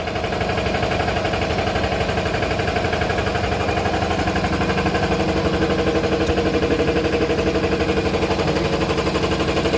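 Toilet-paper rewinding machine running steadily: a mechanical hum with a fast, even rhythm.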